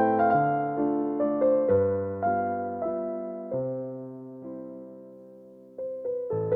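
Slow, gentle piano background music: sustained notes that die away and grow quiet, before new notes strike near the end.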